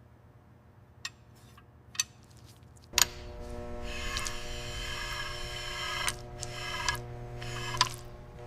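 A few sharp clicks, then about three seconds in a steady machine hum with a high whine sets in and runs on, broken by a few more clicks.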